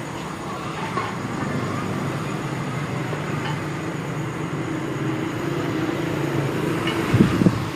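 Steady low hum, with a quick cluster of metal knocks about seven seconds in as a coupling is fitted onto a motorcycle rim-straightening machine.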